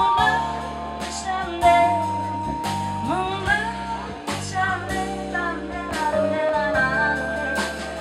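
Live band music: a woman singing held, sliding notes into a microphone over bass guitar and a drum kit keeping a steady beat.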